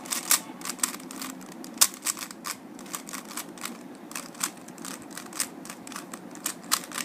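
Quick, irregular plastic clicks of a 3x3 Rubik's cube being turned by hand, a few turns a second, as the cube is scrambled or set up for the next solve.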